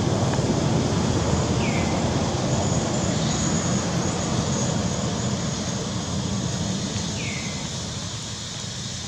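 Low, steady rumble like a passing vehicle, slowly fading, with two short high chirps that fall in pitch, one about two seconds in and one near the end.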